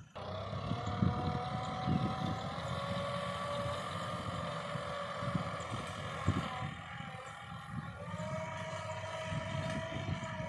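Diesel tractor engine running steadily under load as it pulls a rotary tiller through dry soil, with a rough low rumble under the engine note. The engine's pitch drops slightly a few seconds in and rises again about two-thirds of the way through.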